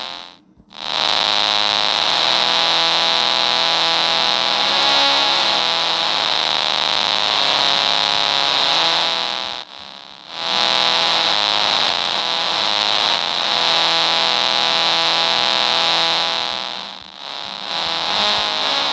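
Pegboard phone synth app playing sustained, thick electronic synth tones with a strong high edge, held for long stretches. The sound drops out briefly about half a second in, about ten seconds in and again near the end.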